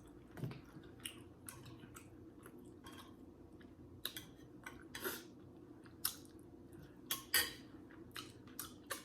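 Close-miked eating of seafood gumbo: chewing with irregular wet mouth smacks and clicks, about a dozen over the stretch, and light clinks of a spoon against the bowl.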